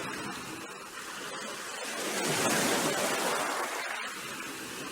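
Sea surf, an even wash of waves that swells about halfway through and then eases off.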